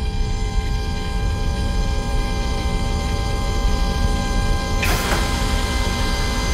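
Steady electronic drone of several held tones over a low rumble, with a swish about five seconds in.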